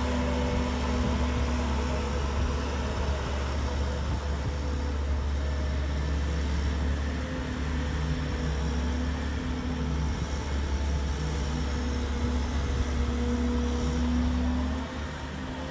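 Hydratrek D2488B amphibious tracked vehicle's engine running steadily while hauling a 3,000 lb payload, its tracks churning through shallow water. The sound drops a little near the end as the vehicle moves off.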